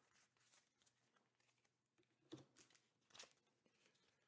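Near silence, with a few faint light ticks of trading cards being handled and laid down, a little over two and three seconds in.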